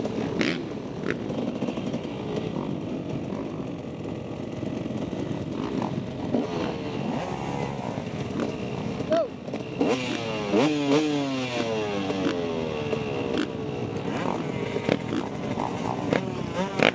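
Motocross bike engines idling at the start gate, the rider's own KTM 250 SX two-stroke among them, with throttles blipped while waiting for the gate to drop. From about ten seconds in, several revs rise and fall in pitch.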